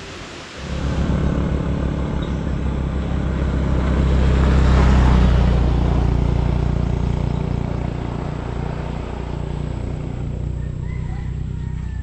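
A motor vehicle engine running, a loud, steady low rumble that comes in just under a second in, with the noise swelling louder about four to six seconds in before easing off.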